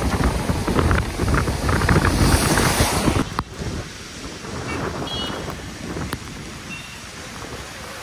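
Wind buffeting the microphone over the running noise of a moving car. The buffeting cuts off sharply about three and a half seconds in, leaving a quieter, steady car noise.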